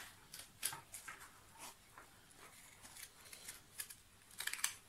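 Faint rustling of paper and small scattered ticks and taps as cut-out paper shapes are handled and written on at a table, with a quick run of ticks near the end.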